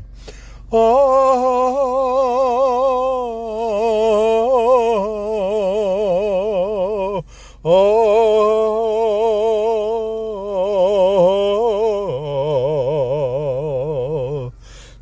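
A man singing a slow song, holding long wordless notes with heavy vibrato, with a short breath break partway through and a step down in pitch near the end.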